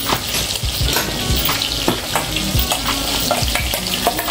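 Tempering sizzling in hot oil, with vadagam, curry leaves and Kashmiri chilli powder frying. A spoon stirs through it with frequent short scrapes and taps against the pan.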